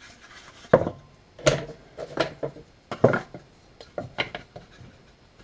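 Wooden birdhouse kit parts being handled and set down on a wooden workbench: a string of irregular wooden knocks and clacks, about six or seven in all.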